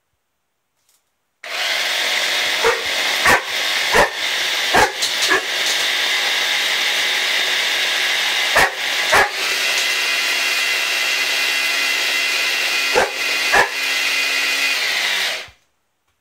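Electric blender switched on about a second and a half in, running steadily, and switched off near the end, while a boxer dog barks at it over and over in short groups of two to five barks.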